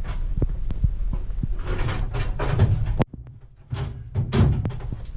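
Scattered knocks and clatter with rustling over a low rumble. The sound cuts out abruptly for about half a second around three seconds in.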